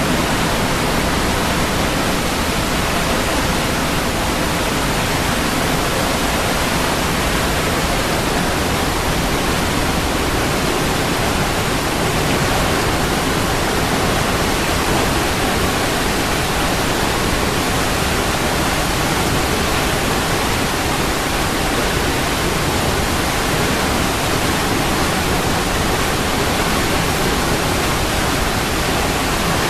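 Waterfall rushing: a steady, even roar of falling water that stays unchanged throughout.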